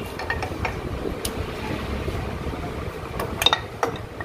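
Aluminium rocker covers being handled and lifted on a Royal Enfield Classic's cylinder head, with the engine stopped. Light metal clicks and clinks come a few at a time, loudest and busiest about three and a half seconds in, over a low steady background hum.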